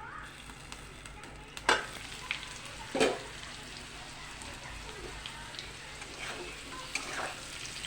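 Potato and raw papaya pieces frying in hot oil in a pan, a steady sizzle, with two sharp knocks about two and three seconds in and a few lighter ones later as the pan is handled and the pieces stirred.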